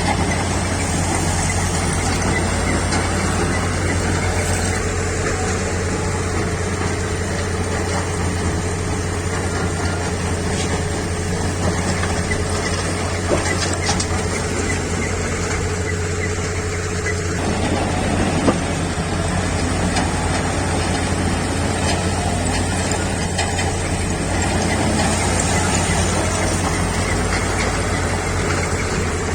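JCB backhoe loader's diesel engine running steadily, with a couple of short sharp knocks from the machine.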